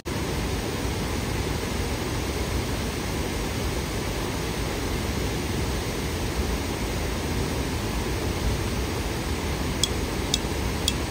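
Steady, even noise of falling water, with three short high chirps near the end.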